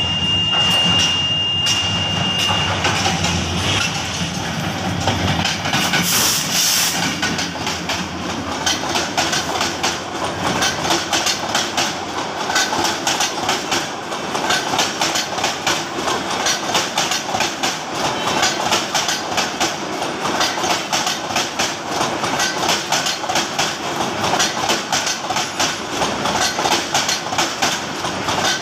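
A Hyundai Rotem diesel-electric locomotive's horn sounds a steady note that stops about two and a half seconds in. The locomotive and a long rake of passenger coaches then pass close by, wheels clattering rapidly and evenly over the rail joints.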